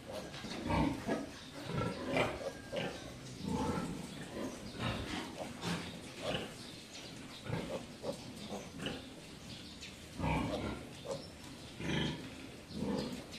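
A nursing sow and her suckling piglets grunting, short grunts coming irregularly every second or so.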